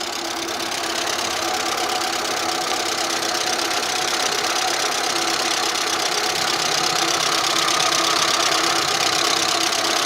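Audi 80 B3 engine running with a fast, steady metallic ticking from its hydraulic valve lifters, the tapping of lifters that the owner thinks are most likely clogged.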